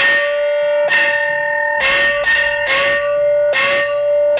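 Chinese small opera gong (xiao luo), a bronze hand gong balanced on the fingertip, struck six times with a thin wooden beater in an uneven rhythm and left ringing open. Each stroke rings with a pitch that bends slightly upward, the inflection this gong is meant to produce.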